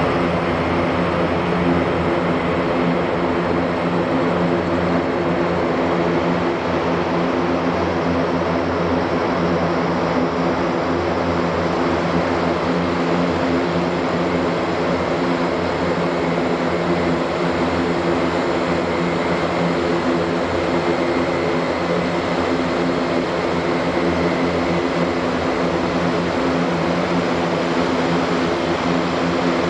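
Airbus A400M's four TP400 turboprop engines and eight-bladed propellers running, a loud, steady drone with several humming tones that hold level throughout.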